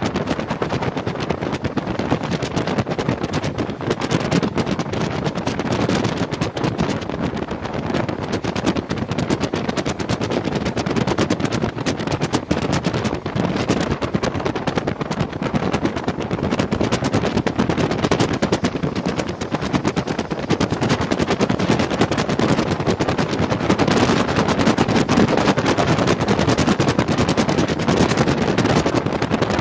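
Rush of a moving locomotive-hauled passenger train with wind buffeting the microphone at an open coach window, a dense, rapid crackle over the running noise.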